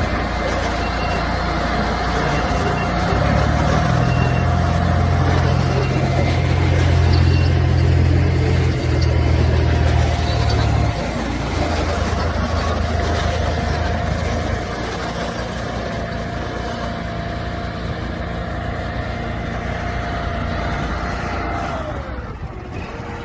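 Tube-Line TL50 inline bale wrapper running on its Honda gas engine while wrapping bales in plastic. A heavy low hum eases about eleven seconds in, and a steady high whine slides down in pitch near the end.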